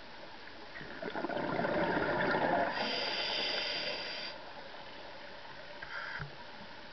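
Scuba diver's exhaled breath bubbling out of a regulator, heard underwater through a camera housing: a rough, gurgling burst of bubbles starting about a second in and lasting two or three seconds, with a brief high whine near the middle, over a steady faint hiss.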